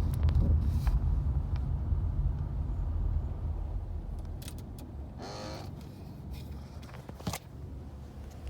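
Low rumble of a 2008 Nissan Altima 2.5 running, heard inside the cabin, easing off over the first few seconds. A brief wavering tone comes about five seconds in, and a sharp click a little after seven seconds.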